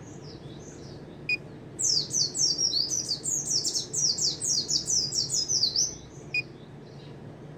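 Caged mountain white-eye (pleci ngalas) singing. After a few soft notes, a loud, fast run of high, downward-slurred notes starts about two seconds in and lasts about four seconds, with a single short chip before and after it.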